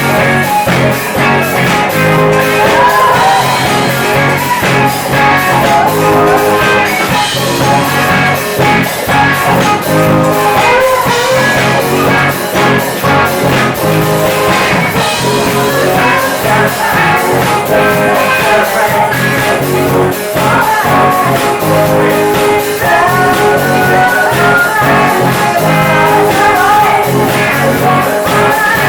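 Live band playing an upbeat pop-funk song with singing over a steady drum beat, bass and guitar.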